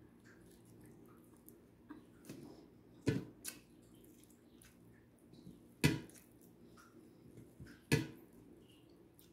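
A person eating fried rice and dried fish with their fingers: soft chewing and small wet mouth noises, with three sharper smacks or clicks a few seconds apart.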